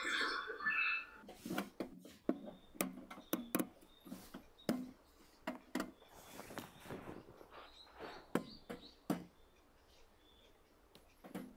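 A busy sound carries over and cuts off about a second in. Then scattered clicks, taps and light knocks of hands opening a metal paint can: a cutter working at the plastic spout cap and the cap being pulled free, with short knocks on the can body.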